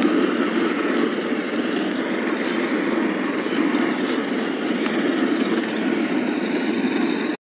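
Kisan Kraft SPR-1205P paddy reaper's 4.5 HP petrol engine running steadily under load as the machine cuts rice. The sound cuts off abruptly near the end.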